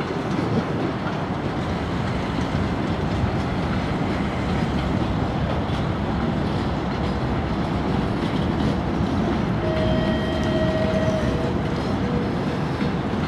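Freight train rolling past: a steady rumble of wagons with wheels clattering over the rail joints. A brief steady high tone sounds about ten seconds in.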